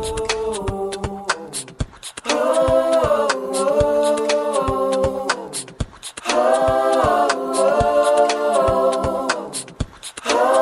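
Unaccompanied vocal group singing held chords in phrases a few seconds long, with short gaps between them and light clicks running through.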